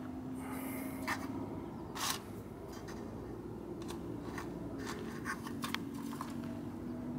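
Light, scattered clicks and scratches on the thin metal of a Victor Tin Cat live mouse trap as fingers poke at it and a mouse scrambles across its floor, about seven sharp ticks in all. A faint steady low hum runs underneath.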